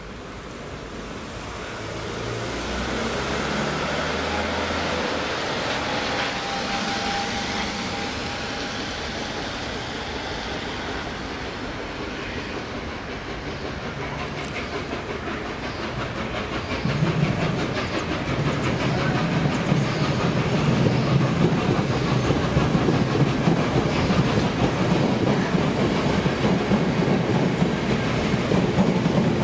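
Trains passing through a station: a rumble swells over the first few seconds as the A1 Pacific steam locomotive Tornado runs through. From about 17 seconds in, a 12-car Class 450 electric multiple unit passes close by, its wheels clattering over the rail joints, and this is the loudest part.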